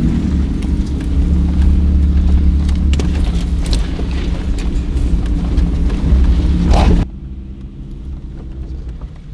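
Jeep Wrangler driving across rough grassland: a steady engine rumble with a few knocks and rattles from the bumpy ground. About seven seconds in the noise drops sharply as the Jeep slows to a stop and its engine runs on more quietly.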